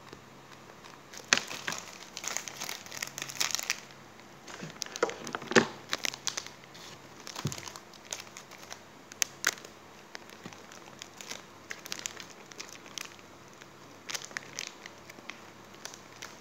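Plastic cracker packets crinkling as hands handle and press them, on and off, with a few sharper crackles.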